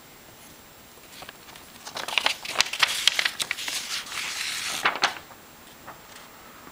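A folded paper instruction sheet of a plastic model kit being opened out and flattened by hand. It crinkles and rustles with crisp crackles for about three seconds, starting about two seconds in and ending with a louder crackle.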